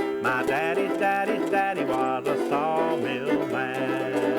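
Bluegrass music with a picked banjo.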